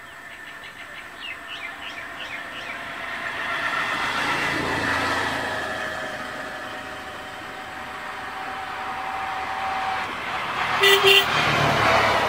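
A motor vehicle going by, its sound swelling and fading with steady held tones, and a short double horn toot about eleven seconds in. A few small bird chirps come in the first couple of seconds.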